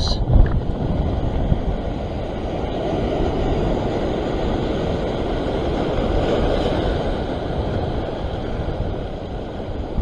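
Wind rushing over the microphone, mixed with the wash of surf breaking over a rock ledge: a steady, rough noise that swells slightly in the middle and eases near the end.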